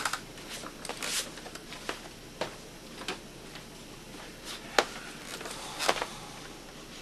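Handling a sheet of 800-grit sandpaper on a workbench: soft rustling and light knocks, with two sharp clicks about five and six seconds in.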